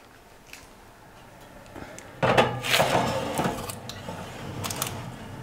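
Metal springform pan slid onto an oven's wire rack, a scraping clatter that starts suddenly about two seconds in, with a short knock near the end.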